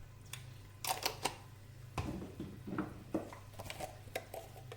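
Irregular light clicks and taps of spice containers and a utensil being handled as ground spices go into a pot, with one duller knock about two seconds in. A steady low hum runs underneath.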